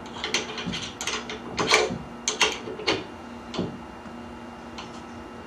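Irregular clicks and knocks of a motorized curtain track's parts being handled as the tension of its drive wires is adjusted, quick for the first few seconds and then dying away.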